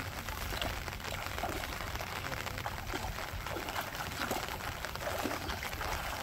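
Legs wading and sloshing through shallow floodwater, with small irregular splashes.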